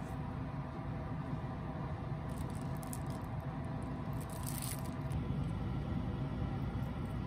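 A metal spoon scooping soft miso paste from a plastic tub, with soft squishing and a few brief scrapes and clicks against the container, over a steady low hum.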